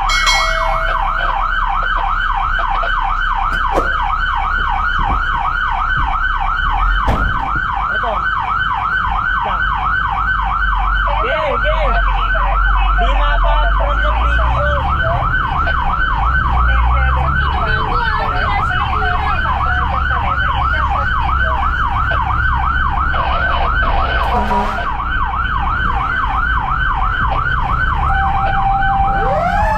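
Fire engine's electronic siren on a rapid yelp, a fast rising-and-falling wail that repeats without a break, heard from inside the cab over the low running of the truck's engine. Right at the end the siren switches to a different tone.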